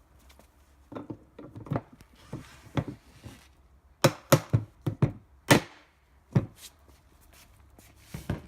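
A mallet knocking a plastic caster holder into the end of a utility cart leg: a run of lighter taps, then several loud strikes starting about four seconds in, and one more near the end.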